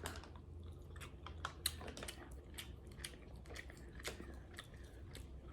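Soft close-up eating sounds of snow crab: chewing with many small scattered clicks and crackles.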